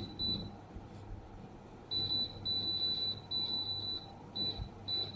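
Touch-screen control panel of a CETUS 55 L dehumidifier beeping as its humidity setting is adjusted: two short high-pitched beeps, then a run of longer beeps about two seconds in, and a couple more short beeps near the end.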